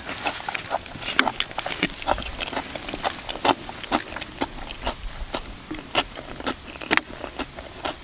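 A person chewing a mouthful of cucumber salad, with wet mouth and lip-smacking sounds: a run of short, irregular clicks and crunches.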